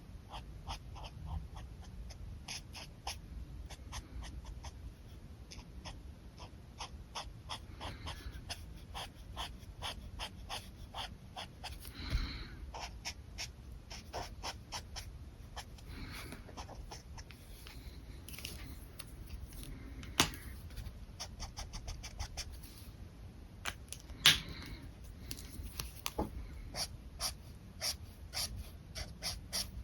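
A dog panting close by in quick, short breaths, about two to three a second, with a couple of louder sharp sounds in the second half.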